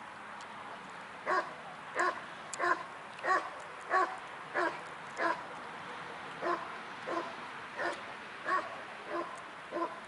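Rottweiler barking at a protection helper: about a dozen short barks, evenly spaced at roughly one every two-thirds of a second, starting about a second in, with a brief pause near the middle.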